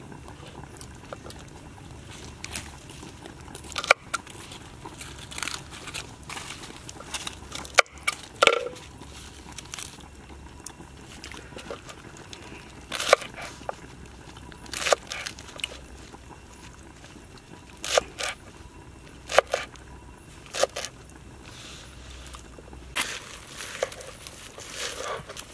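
Knife cutting fresh vegetables on a wooden cutting board: irregular sharp knocks of the blade on the board with crunching, coming closer together near the end.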